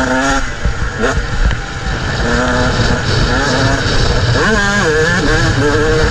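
125 cc motocross bike engine revving under load as it is ridden, the pitch climbing with each throttle opening, just after the start and again about a second in, and swinging up and down around the middle. A steady low rumble of wind and track noise runs underneath.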